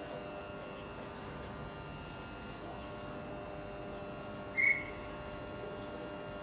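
Stationary Tangara electric train set humming steadily at the platform, its onboard electrical equipment giving a hum of several steady tones. A single short, high beep cuts in about four and a half seconds in.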